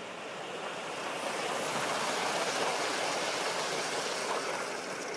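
Gauge 1 live steam locomotive running on the track, a rushing hiss that grows louder over the first two seconds or so and then holds steady.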